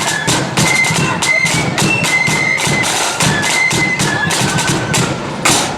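Pipe band playing a march: bagpipes carry a shrill melody over their steady drones, with snare and bass drums beating time. A brief loud burst of noise cuts in near the end.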